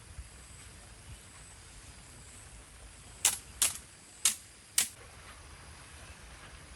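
Four sharp clicks or knocks in quick, uneven succession about halfway through, over a steady low background hiss.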